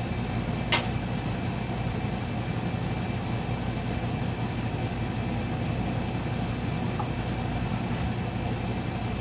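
Steady mechanical hum of a running machine, with one sharp click just under a second in.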